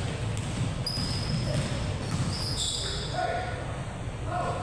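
Indoor basketball game: a ball bouncing on the court floor, with several brief high squeaks, typical of sneakers on a hardwood court, about one and two and a half seconds in.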